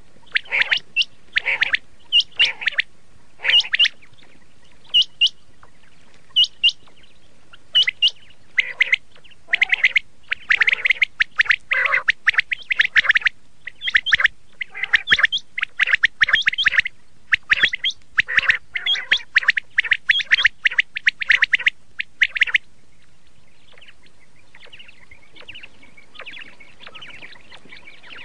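Quail calling over and over in quick groups of short, sharp notes, stopping some six seconds before the end.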